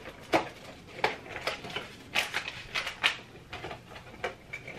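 Box and packet of jelly powder being opened by hand: an irregular run of short crinkles and clicks from the packaging.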